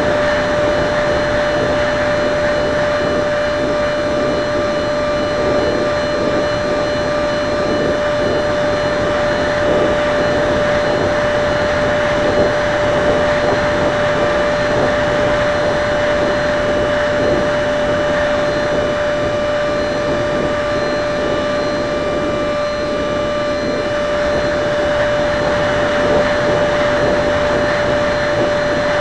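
Skyangel 50 mm electric ducted fan jet in flight: the fan whines at a steady pitch over a rush of air.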